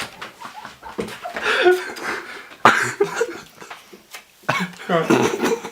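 Indistinct voices and chuckling, with a single sharp knock or slap about two and a half seconds in.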